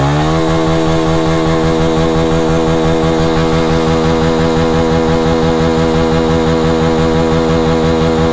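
Dirt bike engine revved up in neutral and held at a steady high speed, its pitch levelling off just after the start.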